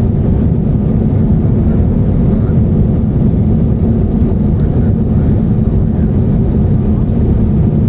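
Steady low cabin noise of an Airbus A350-900 in flight, airflow and Rolls-Royce Trent XWB engines heard from inside the passenger cabin.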